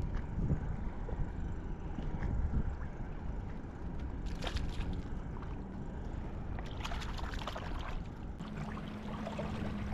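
Sea water sloshing and lapping against a fishing kayak, with wind on the microphone; a brief splash about four and a half seconds in as a shad is tossed back into the sea. A low steady hum comes in near the end.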